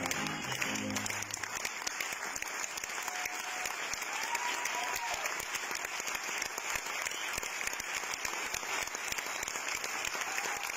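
Audience applauding steadily in a theatre hall, a dense crackle of many hands clapping; the tail of a piece of music ends about a second in.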